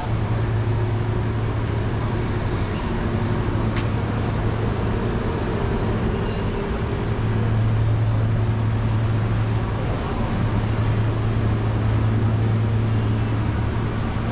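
A steady low mechanical hum, like an idling engine or motor, running over street noise. It starts abruptly and holds an even pitch.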